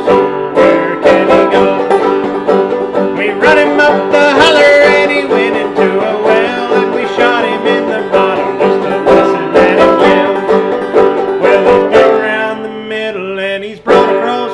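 Banjo played clawhammer style: an instrumental break of quick plucked and brushed notes, the playing thinning out a little near the end.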